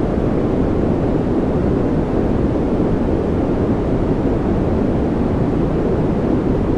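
Steady, unchanging noise track: an even, deep rushing with most of its weight in the low range and little hiss on top, more like brown noise than true white noise, played as a background sound for focus and calm.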